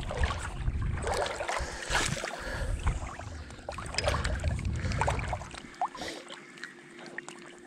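Small wind-driven waves lapping and splashing close by, with wind rumbling on the microphone through the first five seconds or so.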